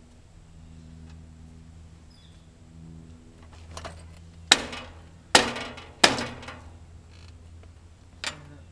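Metal parts clanking: three loud, sharp metallic strikes a little under a second apart, each ringing briefly, with lighter knocks just before and near the end.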